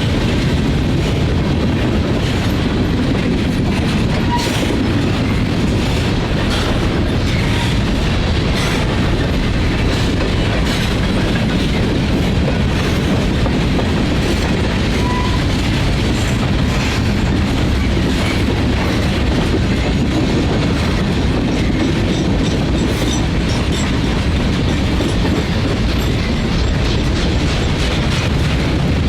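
Freight train cars rolling past, a steady loud rumble with the wheels clicking over rail joints.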